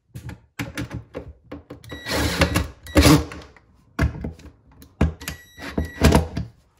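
Cordless drill-driver (screw gun) running in several short bursts, its motor whining, with clicks in between. The longest burst comes about two seconds in. It is driving the screws of an old-work electrical box, drawing the box's tabs tight against the cabinet wall.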